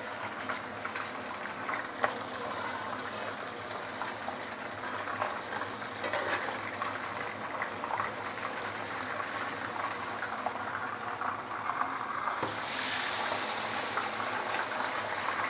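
Whole sweetlips fish deep-frying in a wok of hot oil: a steady bubbling sizzle, with one sharp tap about two seconds in. Near the end the sizzle turns louder and hissier.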